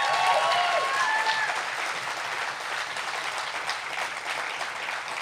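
Live audience applauding, with whoops and cheers over the clapping for the first second and a half. The clapping slowly dies down.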